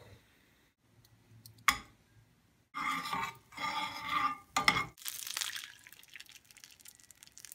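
Butter sizzling in a hot nonstick skillet while a spatula scrapes and stirs it around the pan, with a knock or two against the pan. About five seconds in, beaten eggs are poured into the hot butter and hiss sharply, the sizzle then fading.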